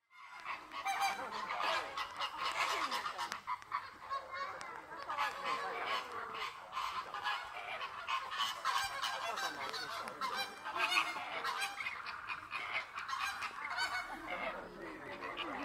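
A flock of flamingos calling all at once: a noisy, unbroken chorus of overlapping honking calls.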